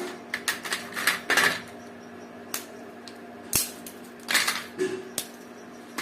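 Metal kitchen utensils clinking and scraping against a pan or plate: irregular light taps, with two longer scrapes about a second and a half in and near four and a half seconds. A faint steady hum runs underneath.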